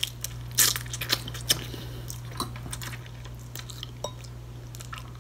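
Close-miked chewing of blue crab meat, with scattered short clicks and crackles from crab shell being picked apart; the clicks come thickest in the first second and a half and thin out after.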